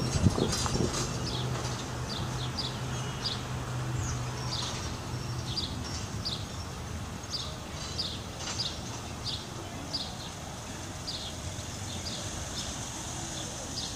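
A bird chirping over and over, short high chirps every second or so, often in pairs. Under it a steady low hum stops about five and a half seconds in.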